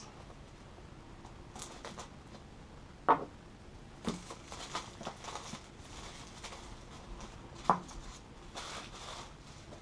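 Gloved hands handling and opening a small cardboard box: quiet rustling and scraping, with two sharp clicks, about three seconds in and near eight seconds.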